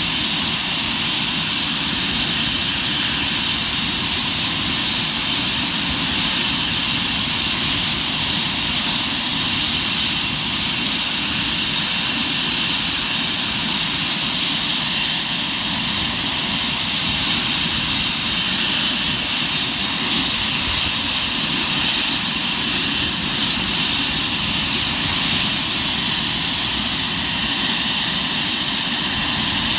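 Panavia Tornado GR4's Turbo-Union RB199 turbofan engines running steadily, a loud rush with a constant high-pitched whine.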